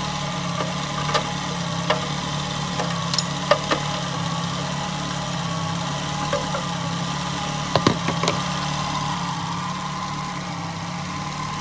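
Car engine idling steadily, with a few irregular sharp clicks over it, the loudest close together about eight seconds in.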